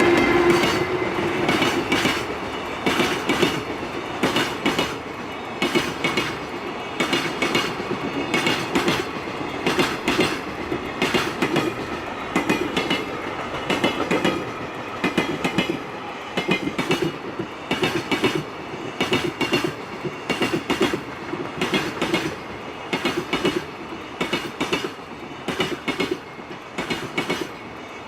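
Freight train wagons rolling past, their wheels clacking over the rail joints in a steady repeating rhythm that slowly gets quieter as the train goes by.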